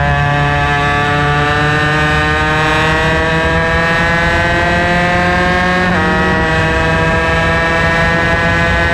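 Superkart's two-stroke racing engine at full throttle, its pitch rising steadily as the kart accelerates. About six seconds in an upshift drops the pitch sharply, and it climbs again in the next gear.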